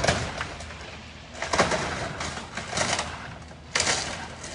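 Old wooden mill building cracking and crashing as an excavator tears into it, with three sudden bursts of splintering timber and falling debris: at the start, about a second and a half in, and just under four seconds in. The excavator's engine runs steadily underneath.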